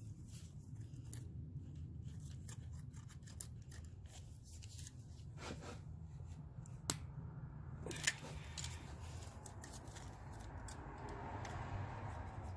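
Light metallic clicks and scraping of a feeler gauge and valve adjusting tool on a rocker arm's adjusting screw, setting valve clearance on a Honda/Acura 3.2L V6, with two sharper clicks about a second apart in the middle. A steady low hum runs underneath.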